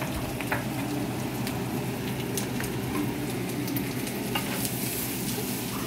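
Chopped leftover roast pork (lechon) frying for sisig in a skillet, sizzling steadily with scattered sharp pops and crackles.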